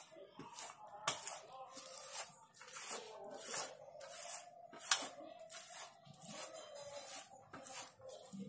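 Ripe palmyra palm fruit pulp rubbed by hand against a woven bamboo basket: repeated wet, fibrous scraping strokes, about one or two a second.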